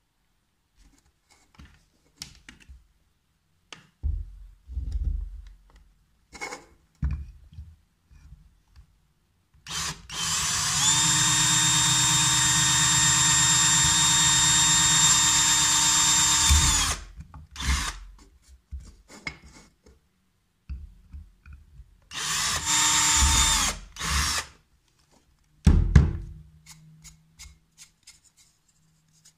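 Cordless drill running at a steady whine for about seven seconds, then again for about two seconds, as its bit bores a hole through the bottom of a thin clear plastic container. Scattered knocks from handling come before and between the runs.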